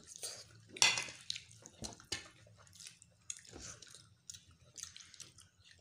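Close chewing and mouth sounds of people eating pasta, with scattered soft smacks and small clicks.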